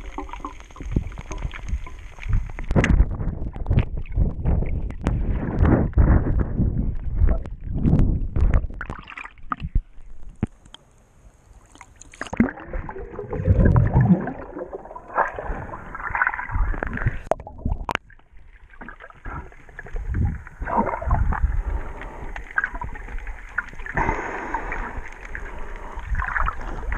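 Water sloshing, gurgling and bubbling from a swimmer's arm strokes, heard muffled from under the water, in irregular thumps and rushes. It drops away briefly about a third of the way in and again about two-thirds in.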